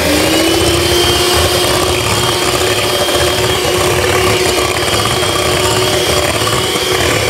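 Electric hand mixer running, its beaters whipping cream in a glass bowl. A steady motor whine that rises in pitch as it comes up to speed right at the start, then holds level.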